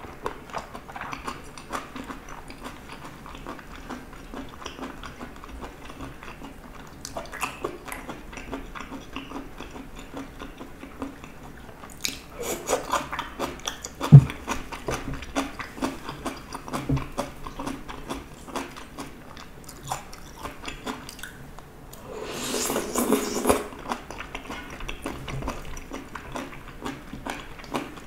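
Close-up chewing and wet mouth sounds of someone eating spicy stir-fried gopchang (chewy intestine) with vegetables and cheese, with many small smacks and clicks. One sharp click comes about halfway through.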